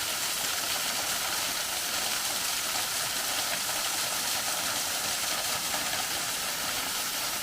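A free-falling waterfall rushing steadily, heard close at its base: an even, unchanging hiss of falling and splashing water.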